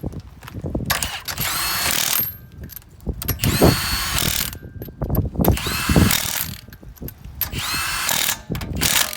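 Impact wrench running in four bursts of about a second each, spinning on and hammering the lug nuts that hold a wheel on the hub.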